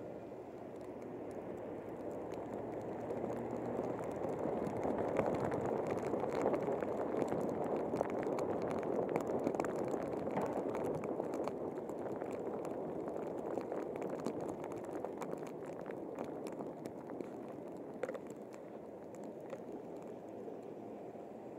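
A car driving on snow-covered streets, with a steady rushing of tyres through slush and snow picked up from the outside of the car. It swells in the first few seconds and eases near the end, with many small scattered ticks and one sharper tick late on.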